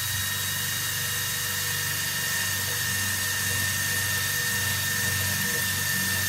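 Electric drill running at a steady speed, turning a bit, with a steady high whine over a low hum.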